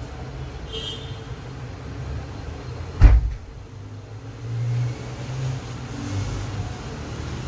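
A door bangs shut once with a heavy thud about three seconds in, over a steady low rumble.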